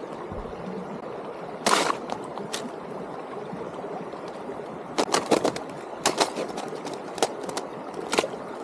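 Hiking boots crunching on snow and ice along a frozen creek edge, in irregular careful steps, with a longer crunch about two seconds in and a quick run of steps around five seconds. Under them runs a steady hiss of flowing creek water.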